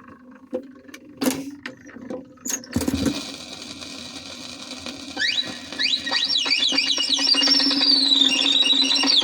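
Start of a 78 rpm shellac record: stylus clicks and crackle over a steady low hum, then from about five seconds in, rapid rising and falling bird-like whistles imitating a mockingbird, opening the song.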